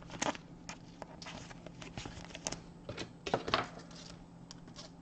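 Trading cards being handled at a table: light, irregular clicks and rustles of card stock, with a short cluster of louder ones about three and a half seconds in.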